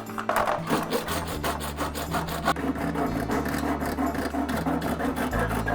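Quick, even rasping strokes, several a second, of a tool cutting or scraping through a thin plastic plant pot.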